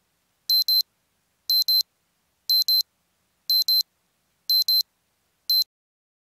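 Countdown timer's electronic alarm beeping: short, high-pitched double beeps about once a second, five pairs and then one single beep near the end before it stops. It signals that the countdown has run out.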